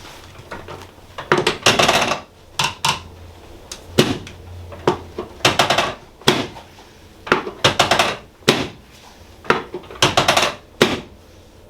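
Sharp clacks and knocks from chiropractic adjusting equipment, coming in irregular clusters of several quick strokes every second or so.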